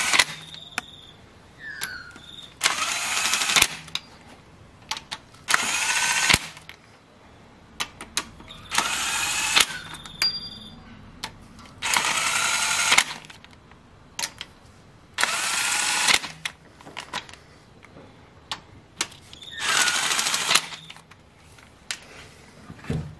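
A cordless power tool spinning new cylinder head bolts down through a socket extension into a Nissan QG18DE 1.8L head, in about seven short runs of a second or so each, every few seconds, with the motor pitch swooping up and down as each bolt runs in; light clicks of the socket being moved between bolts.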